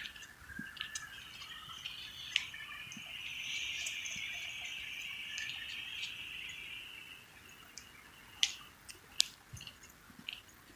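Marker tip scratching and squeaking across a surface for several seconds as a tag is written, followed by a few sharp clicks.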